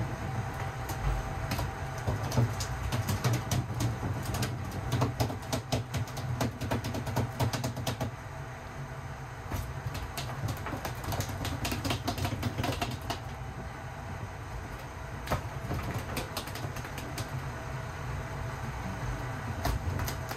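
Fishing boat's engine running with a steady low drone, under water noise and frequent sharp clicks and knocks from fishing gear on deck.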